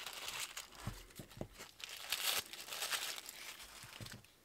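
Crinkled brown paper wrapping rustling and tearing as it is pulled off rolls of washi tape, with a few light knocks as the rolls are handled and set down on the tabletop.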